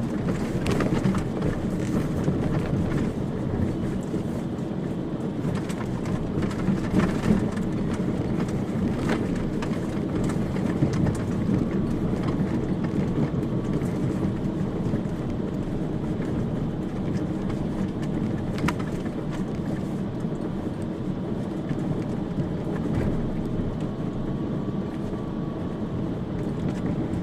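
Fiat Fiorino van driving over a rough mountain dirt track: a steady low rumble of engine and tyres with irregular knocks and rattles from the body and suspension.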